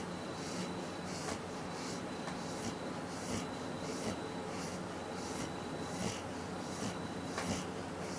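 Pit bull dog snoring in her sleep: short, evenly spaced breaths with a hissing rasp, about three every two seconds.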